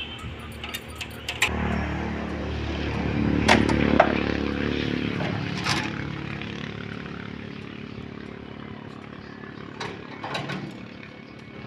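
A motor vehicle's engine rumble swells in, is loudest a few seconds in, and fades away, as when it passes by or pulls off. A few sharp clicks or knocks sound over it.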